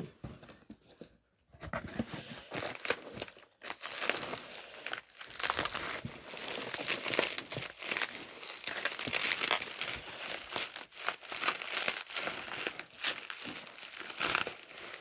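Packaging crinkling and tearing in the hands as an album is unwrapped: a stream of small crackles that starts about two seconds in and goes on almost without a break.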